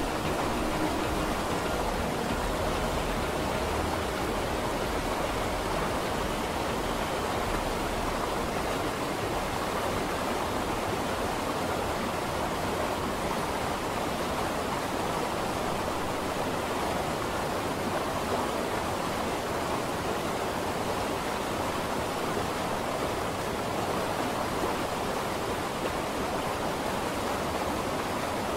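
Steady, even rushing noise of falling or running water, with no separate drops, knocks or other events standing out.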